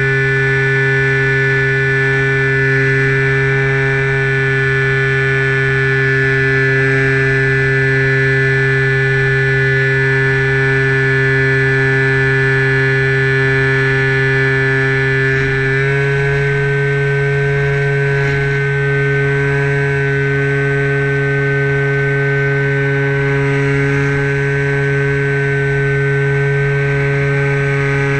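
Sky Surfer RC plane's electric motor and propeller heard from on board, droning steadily at cruise. The pitch steps up about halfway through and rises again near the end as the throttle changes. Wind rumble runs underneath.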